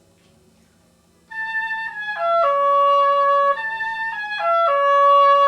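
Oboe playing a short slurred phrase that starts about a second in and begins again partway through, moving between held notes. It is a repeated attempt at the A to C-sharp interval that the teacher found too far apart.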